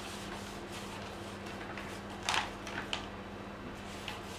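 A sheet of A4 paper rustling as it is handled over the 3D printer's bed, with two short rustles about two seconds in, over a steady low hum.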